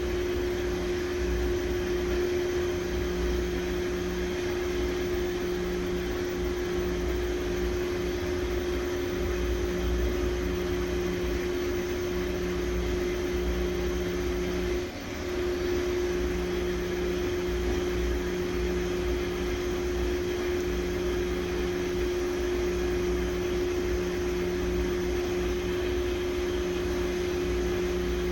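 Washing machine running on spin: a steady motor hum with one constant tone over a low rumble, dipping briefly about halfway through.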